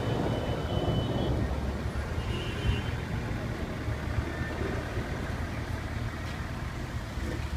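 Car engine running steadily: a low, even rumble with no revving.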